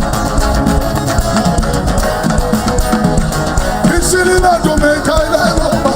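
Live worship band music with drum kit and guitar playing at full level, with some voices singing along.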